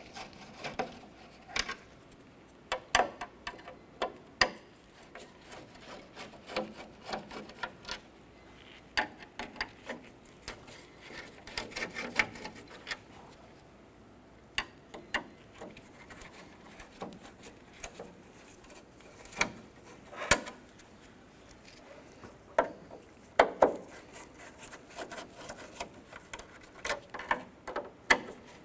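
Phillips head screwdriver backing screws out of the top edge of a plastic truck grille: irregular small clicks and short scraping rubs as the bit turns in the screw heads.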